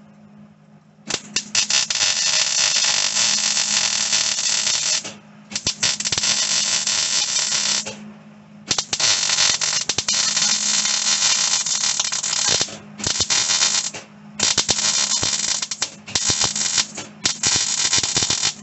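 Wire-feed (MIG) welder arc crackling on the sheet-metal floor and transmission tunnel in short stitch welds: seven bursts of a few seconds or less, the first starting about a second in, over a steady low hum.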